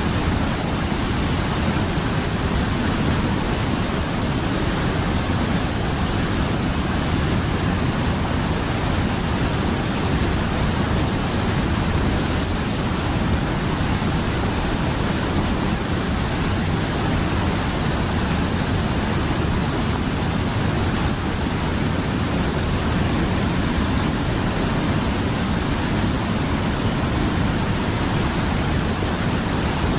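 Mountain river rushing over rocks: a steady, unbroken wash of flowing water that does not change.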